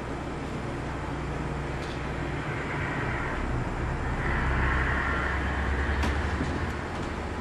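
A steady low rumble with a hiss, like a recording of passing traffic or a train, played back from a small handheld device. It starts abruptly, and the hiss swells about halfway through.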